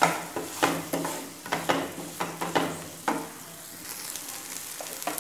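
Wooden spatula stirring and scraping fried onion-tomato masala around a nonstick kadai, about eight quick strokes, over the sizzle of the masala frying in oil. The stirring stops about three seconds in, leaving the steady sizzle.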